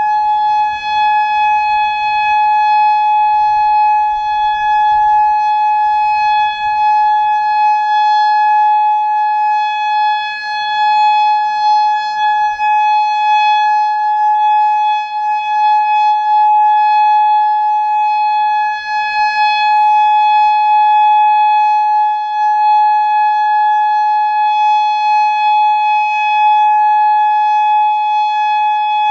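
Federal Signal Modulator 3012 electronic outdoor warning siren sounding a steady single-pitch tone during its monthly test. The loudness rises and dips slightly while the pitch holds.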